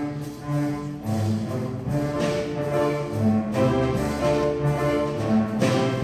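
String orchestra playing: violins, violas and cellos bowing together, the notes changing every fraction of a second.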